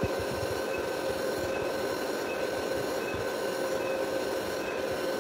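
DC inverter arc welder switched on and idling, its cooling fan whirring with a steady electrical whine.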